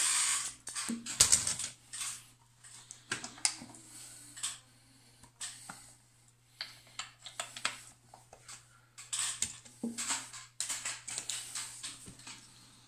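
Plastic-and-metal clatter of 7018B car stereo head units being handled and swapped, irregular clicks and knocks as the unit is lifted, set down and its connectors plugged in, over a low steady hum.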